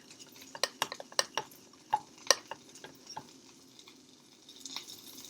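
A spoon clinking and scraping against a bowl of pancake batter as it is stirred and scooped, in quick irregular taps that thin out after about three seconds.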